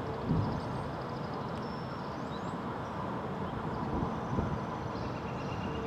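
Floodwater flowing fast across a submerged road, a steady rushing noise.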